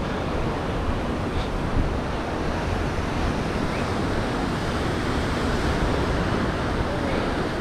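Steady rush of ocean surf with wind buffeting the microphone, an even roar without any distinct events.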